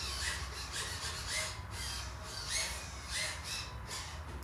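Radio-controlled autogyro model being handled on its pivoting test rig: a series of about six short rasping whirs at irregular intervals, over a steady low hum.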